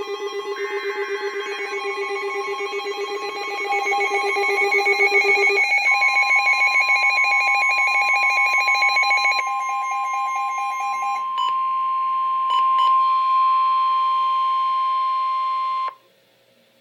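Emergency alert tones for a severe thunderstorm warning. Several electronic alarm tones are layered, some beeping in rapid pulses. About six seconds in, a steady single-pitch NOAA Weather Radio warning tone joins them, and everything cuts off abruptly near the end.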